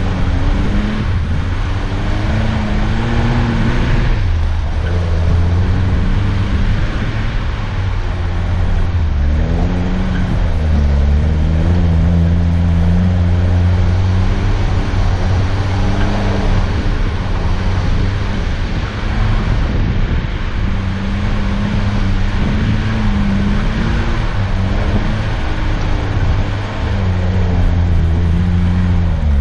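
Off-road 4x4's engine running under load on a snowy uphill track, its pitch rising and falling with the throttle.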